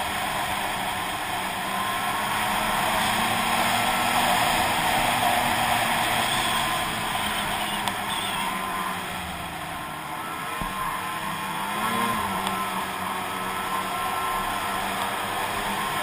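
Snowmobile engine running under way on a trail, over a steady rush of noise. The engine note eases off about ten seconds in and picks up again a couple of seconds later.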